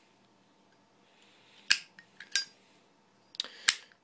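Zippo lighter being worked: several sharp metallic clicks and clinks with a short ring, with brief scrapes as the flint wheel is struck to light it.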